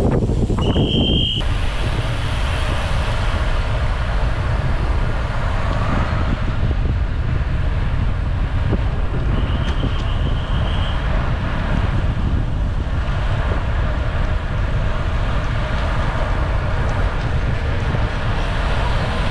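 Steady wind rumble on the microphone and road noise from moving along the route. Two short, steady high-pitched beeps sound over it, one right at the start and a longer one about ten seconds in.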